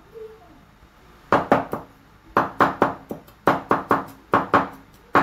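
Cleaver mincing garlic and shallots on a wooden cutting board: quick chopping knocks starting about a second in, in short bursts of a few strokes each.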